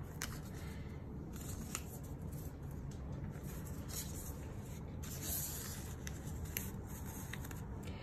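Paper strips being handled and laid on a fabric surface: faint rustling with a few light taps and clicks, over a low steady hum.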